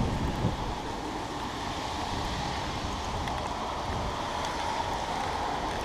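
Steady wind noise on the microphone in the rain, an even rushing hiss with no distinct events.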